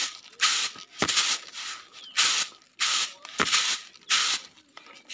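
Rice being winnowed in a flat woven bamboo tray: the grains swish across the tray with each toss, about seven rhythmic shushes in a row, with a couple of sharp knocks as the tray is jolted.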